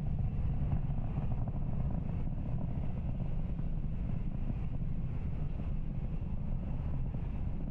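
Steady low rumble of the Falcon 9 first stage's nine Merlin 1D engines during ascent.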